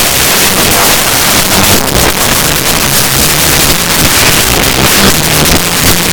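Heavily distorted, bass-boosted music: a loud clipped roar filling every pitch, with low bass notes shifting underneath.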